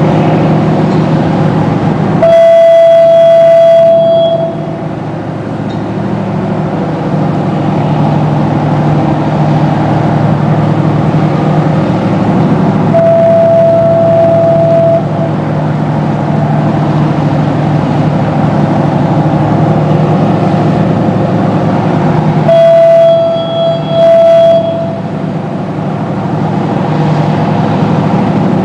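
Crew boat's Detroit Diesel engines running steadily, while the platform's fog horn sounds a long blast a couple of seconds in and again about 20 seconds later, the second time as two blasts close together. A fainter horn tone is held for about two seconds midway.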